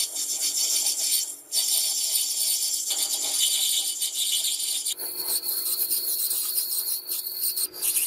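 Continuous scraping of an abrasive being rubbed over metal by hand, in long strokes with a short break about one and a half seconds in. The scraping changes in tone about five seconds in.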